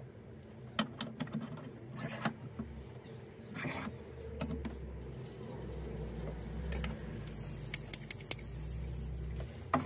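An old steel file being handled and clamped upright in a bench vise: scattered metal clicks and knocks, a quick cluster of clicks near the end, and a low steady hum through the second half.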